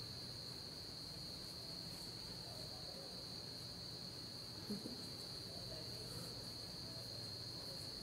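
Crickets trilling in one steady, unbroken high note, over a faint low hum, with a single brief soft knock about two-thirds of the way through.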